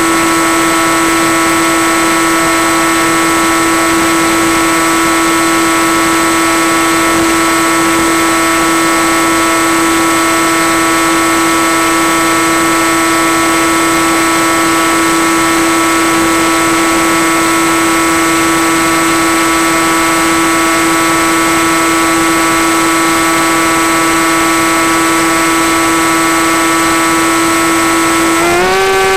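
Electric motor and propeller of a Skywalker FPV plane running at steady cruise throttle, a steady hum over wind hiss. Near the end the pitch rises and holds higher as the throttle is opened.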